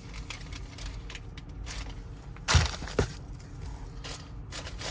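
Plastic packaging rustling and crinkling as items are handled from a box, with scattered small clicks, one louder crackling burst about halfway and a sharp click just after.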